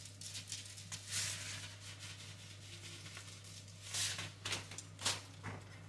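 Quiet kitchen handling: scattered light ticks and a few short rustles, about a second, four seconds and five seconds in, over a steady low hum.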